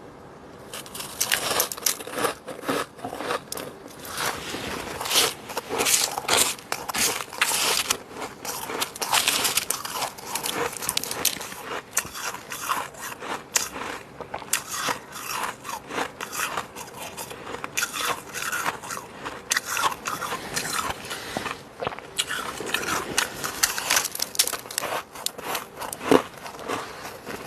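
Close-miked biting and crunching of fluffy freezer frost, a dense run of crackling crunches that starts about a second in.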